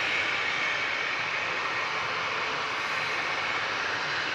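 Jet airliner engines running at a steady pitch: an even rushing noise with a thin high whine held steady through it.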